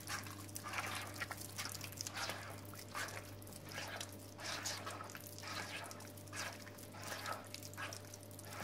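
A hand squeezing and kneading a wet mix of crumbled cheese, yogurt, oil and egg in a plastic bowl: soft, irregular wet squelches about once or twice a second, over a steady low hum.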